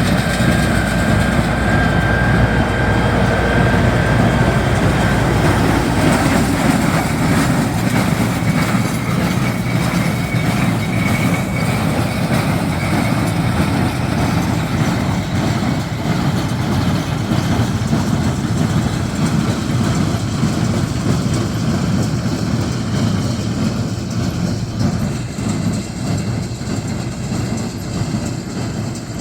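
A tractor running steadily while it pulls a square hay baler, the engine under load with the baler's ram clattering.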